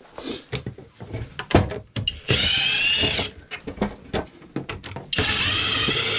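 Cordless drill/driver running in two bursts of about a second each, with short clicks and knocks of tool handling between them.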